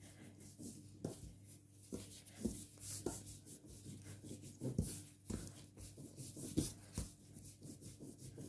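Hands kneading a ball of bread dough on a floured tablecloth: soft, irregular thumps and rubbing, about one a second, as the dough is pressed, folded and turned.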